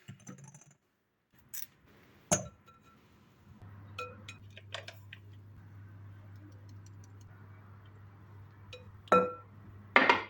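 A few separate clinks and knocks of glassware and dishes being handled and set down, the loudest two near the end, over a steady low hum.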